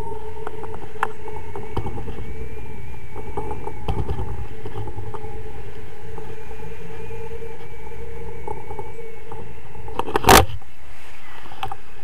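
Wind rushing over the camera microphone during a tandem paraglider flight: a steady rumble with a wavering whistle, a few small clicks, and one loud knock on the camera mount near the end.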